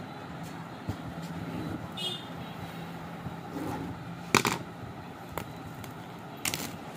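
Plastic shrink-wrap on a phone box scraped and crackling as a pen-like tool slits it open: a few short sharp scrapes, the loudest about four seconds in, over a steady low hum.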